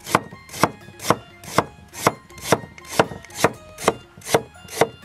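Chinese cleaver slicing fresh ginger into thin rounds on a chopping board. Each cut ends in a crisp knock on the board, about two a second in an even rhythm.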